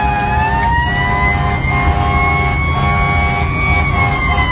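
Fire engine siren wailing, its pitch sinking early on, climbing slowly, then sinking again near the end, over the steady rumble of the truck's engine and road noise inside the cab.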